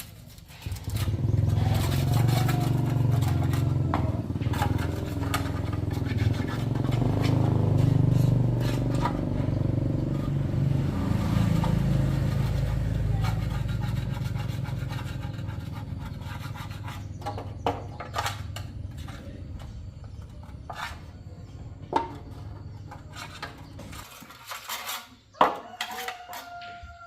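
A small motorcycle engine starts about a second in and runs steadily, gradually fading, then stops near the end, leaving a few scattered clicks and knocks.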